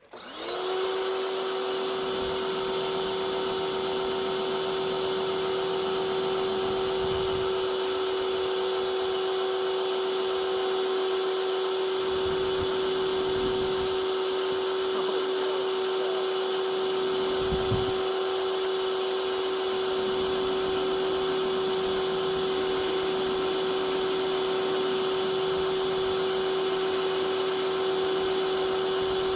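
SunJoe electric pressure washer motor and pump switching on, briefly rising in pitch as they spin up, then running with a steady hum and whine.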